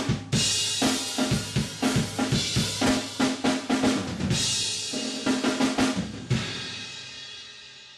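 Drum kit playing a busy run of rapid snare and bass drum hits with cymbals, ending on a final crash about six seconds in that rings and fades out.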